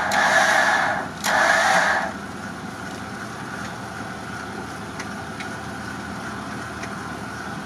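Electric winch on a Toyota FJ Cruiser running under load, hauling on a strap anchored to a birch tree: two pulls with a short break about a second in, then it stops about two seconds in, leaving the truck's engine idling.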